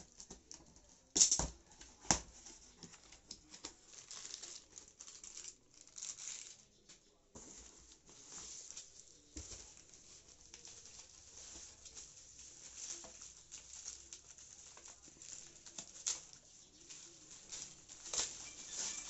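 Cardboard box being opened by hand: tape and flaps peeled back and the packing handled, with faint rustling, crinkling and tearing. Two sharp knocks about a second and two seconds in.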